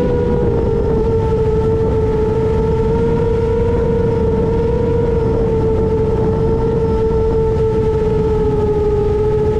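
Motors and three-blade 7-inch propellers of an FPV quadcopter (Emax Eco II 2806.5 motors, HQ 7x3.5x3 props) running at cruise: a steady whine that wavers slightly in pitch as the throttle shifts, over a low rush of wind and prop wash.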